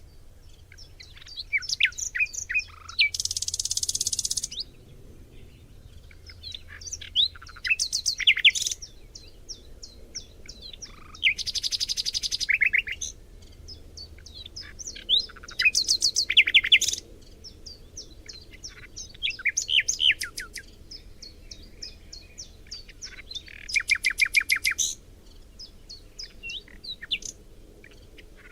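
Songbirds singing in a forest: short phrases of rapid chirps and trills every few seconds, some as fast buzzy trills, with quieter gaps between.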